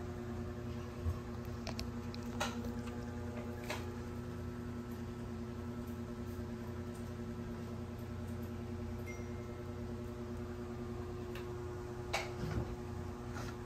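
A steady machine hum with several fixed tones, with a few light clicks and taps scattered through it, two close together near the end.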